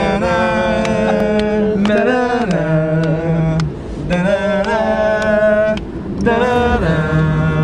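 Chant-like music from a theatre score: long held melodic phrases with gliding pitch at the phrase ends, over a low sustained note that shifts between two pitches.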